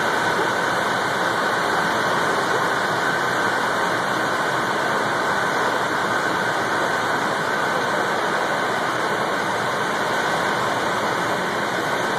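Steady rush of air from the cooling fans of a supercomputer cluster with more than 8,000 cores, with a steady whine on top. The fans are working to carry about 2 megawatts of heat out of the systems.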